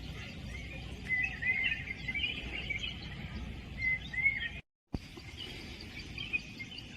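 Small birds chirping in short, wavering calls over a steady low outdoor background noise; all sound cuts out for a split second a little past the middle.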